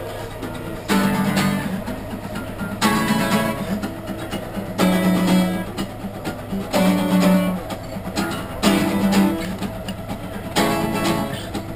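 Two acoustic guitars strummed together in a steady rhythm, with a strong chord accent about every two seconds.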